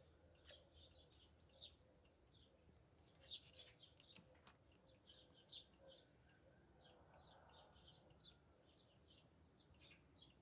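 Faint chirping of small birds: a steady run of short, high chirps with a few soft clicks in between.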